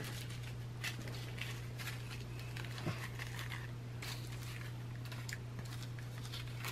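Small clear plastic zip bags of square diamond-painting drills crinkling and rustling faintly as they are handled, with a few light clicks, over a steady low hum.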